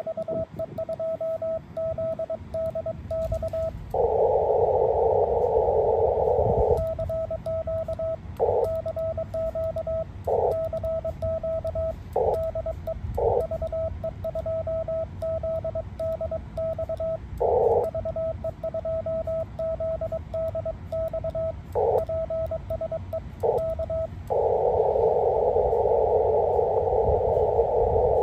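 Morse code (CW) from an amateur radio transceiver: a single steady tone keyed on and off in quick runs. Between the runs, hiss of band noise comes through the narrow filter, longest for a few seconds about 4 s in and again near the end.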